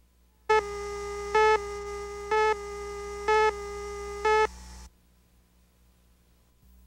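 Broadcast countdown-leader tone: a steady electronic tone with five louder beeps about once a second, cutting off suddenly a little under five seconds in.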